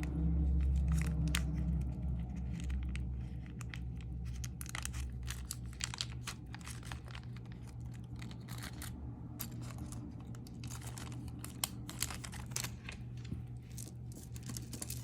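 Strands of plastic and stone bead necklaces being handled: irregular small clicks of beads knocking together, with crinkling, over a steady low hum.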